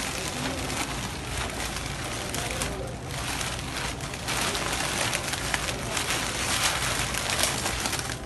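Steady hiss of supermarket background noise.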